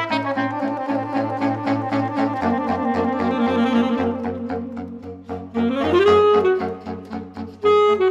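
Saxophone quartet playing a grooving passage: the lower saxophones repeat short detached bass notes while the upper saxophones play quick runs and trills. The bass steps down about two and a half seconds in, a quick upward run comes just before six seconds, and a held high note enters near the end.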